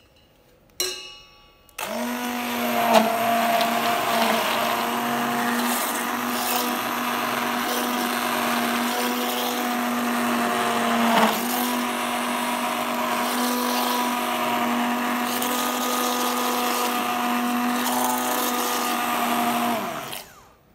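A Philips ProMix 550 W hand blender runs steadily in a steel pot of milk cream, churning it to separate the butter. The run starts about two seconds in, has a few brief knocks along the way, and cuts off just before the end. A single metallic clink comes just before the motor starts.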